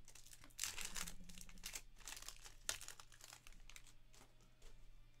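Plastic wrapper of a 2023-24 Panini NBA Hoops trading-card pack crinkling and being torn open, in irregular rustles that are loudest about a second in, with a short sharp crackle a little past the middle.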